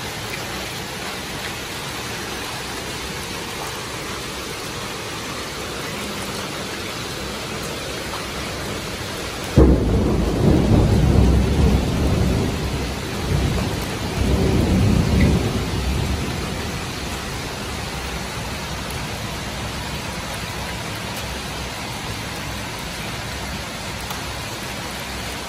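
Heavy rain pouring steadily. About ten seconds in a thunderclap breaks suddenly and rumbles for about six seconds, swelling a second time before it dies away under the rain.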